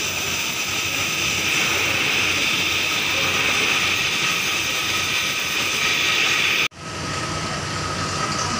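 Gas welding torch flame hissing steadily while filler rod is melted onto a damaged ship propeller blade. About two-thirds through the sound breaks off for an instant and a steady hum with a faint tone carries on.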